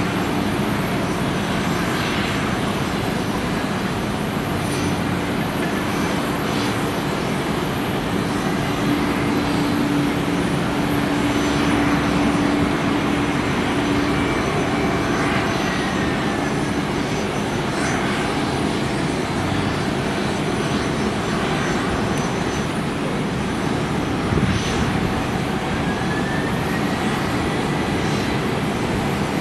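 Jet airliner engines running steadily with a constant low hum. A faint whine falls away about halfway through, and another whine rises near the end.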